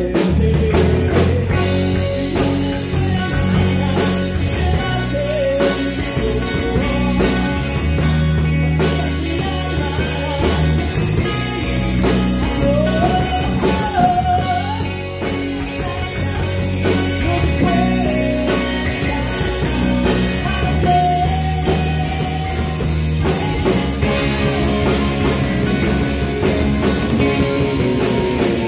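Live rock band playing: acoustic and electric guitars over drums, with a singer's voice.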